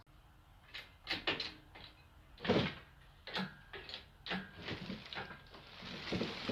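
An irregular series of knocks and clunks from tools and parts being handled during work on an engine, the loudest about two and a half seconds in.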